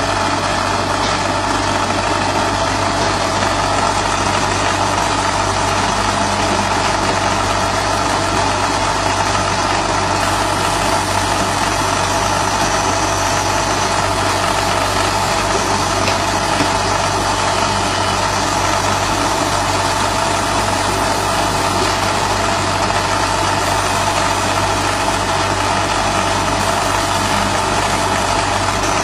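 50 W RF CO2 laser marking machine running steadily as it engraves wooden boxes: a constant, even machine hum and whir with no breaks or changes.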